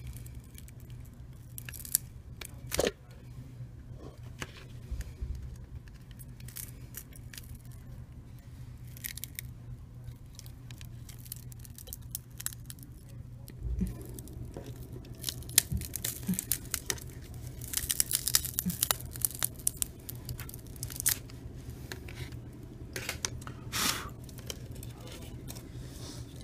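Cracked glass digitizer of an LG Optimus L90 being pried and peeled off the phone's frame, its heat-softened adhesive letting go. Scattered clicks, scrapes and short tearing crackles, busiest about two-thirds of the way through.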